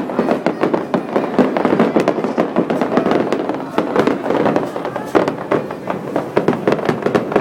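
Aerial fireworks display going off in a rapid, unbroken stream of bangs and crackles, many a second.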